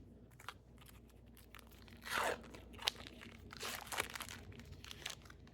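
Foil wrapper of a trading-card pack being torn and crinkled open, in a few short crackling bursts about two and four seconds in.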